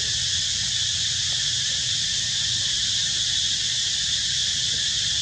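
Steady high-pitched drone of an insect chorus, with a low rumble underneath.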